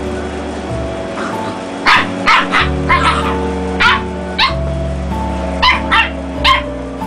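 Dachshund barking in short, sharp yips, about ten of them starting about two seconds in, over steady background music.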